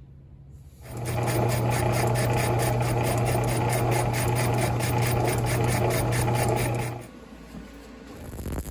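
Belt-driven metal lathe running under power, its motor humming steadily while the tool cuts into a scrap metal piece being bored out for a pipe adapter. It starts about a second in and stops abruptly about seven seconds in.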